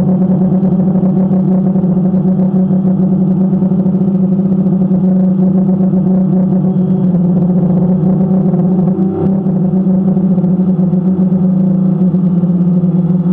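An engine or motor running steadily at constant speed, giving a loud, unchanging hum.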